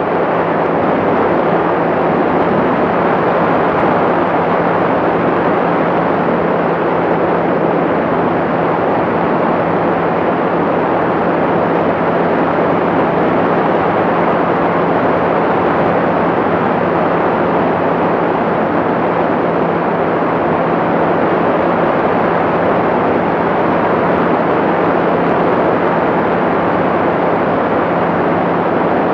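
Light aircraft in level cruise: its engine and propeller run steadily under a rush of airflow, with a constant low hum and no change in power.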